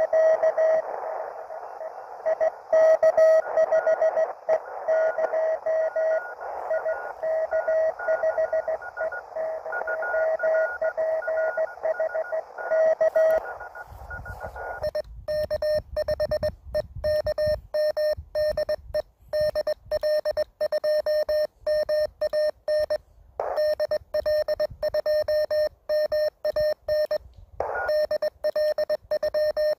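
Morse code (CW) from a (tr)uSDX QRP transceiver: a received station's keyed tone over band hiss, with a fainter second signal at a higher pitch. About 14 seconds in, the hiss cuts out and a clean keyed sidetone follows, the sound of the operator sending Morse himself.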